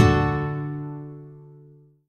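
Background music: a chord struck at the start rings out and slowly fades, dying away to silence near the end.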